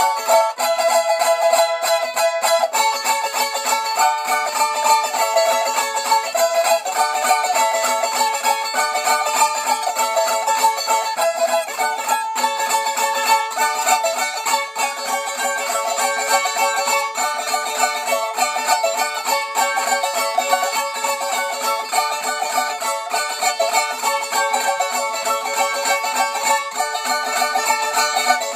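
Six-string steel-strung Portuguese cavaquinho strummed fast, playing a continuous chord-based tune.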